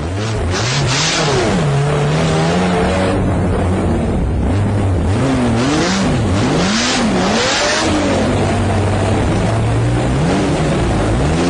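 Ferrari sports car engines revving loudly, the pitch swinging up and down again and again.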